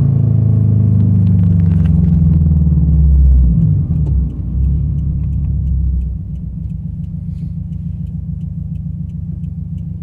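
Straight-piped, catless Subaru BRZ flat-four exhaust heard from inside the cabin. The engine note falls steadily as revs drop over the first few seconds, wavers briefly around four seconds in, then settles into a steady, quieter low drone. Light, regular ticking at about three a second runs under it from about four seconds in.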